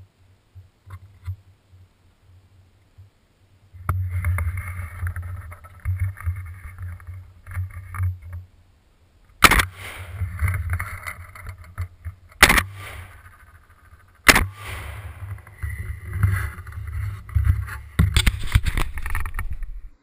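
Three shotgun shots from a semi-automatic shotgun, recorded by a camera mounted on the gun: about halfway through, then about three seconds later, then two seconds after that. Between the shots a low rumble of handling and wind on the gun-mounted camera, with a quick run of sharper knocks near the end.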